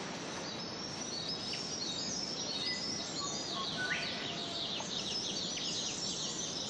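Outdoor ambience of many birds chirping in quick, high, repeated notes, with a few lower whistles around the middle, over a steady hiss.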